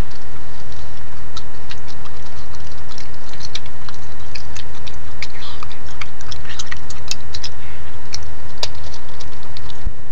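Trail camera's steady electrical hum and thin whine, with many irregular small clicks and scratches from a raccoon moving about right at the camera, thickest in the middle and with a few sharper clicks later.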